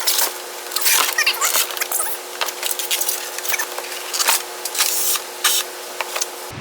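Packing being handled while parts are pulled out of a shipping box: irregular rustling, scraping and brief squeaks, over a faint steady hum.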